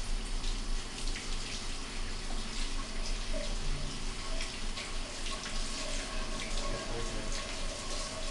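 Water running from a hose held against a wet cat's fur, splashing steadily onto a tiled shower floor.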